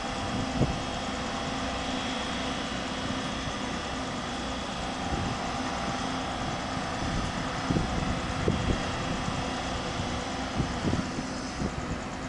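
Alishan Forest Railway diesel locomotive running steadily as it slowly approaches, with a few light clanks. The noise eases slightly near the end.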